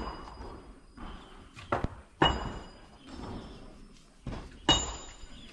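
Sharp strikes of metal on metal, four of them at uneven intervals, each leaving a brief high ring.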